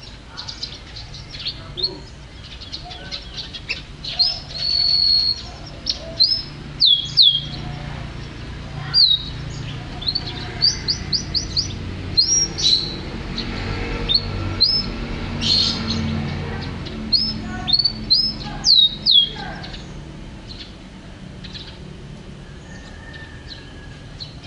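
Canary singing: a run of high chirps, quick falling whistles and short trills in bursts, thinning out over the last few seconds.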